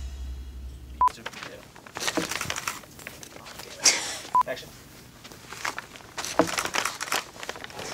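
Film clapperboard snapped shut about a second in: one sharp clack. A short high beep comes with it and again a few seconds later, with faint rustling and handling noises around it.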